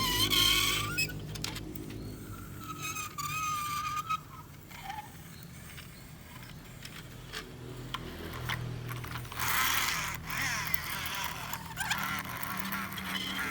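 Scattered clicks, knocks and scraping of a small plastic transforming toy truck being handled, with a faint wavering tone a few seconds in.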